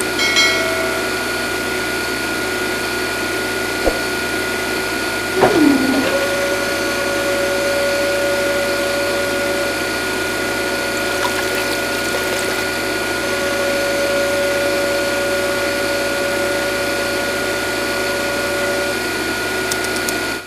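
Small electric motor running steadily with a whine; about five seconds in a sweep falls in pitch, then a new steady tone joins the whir.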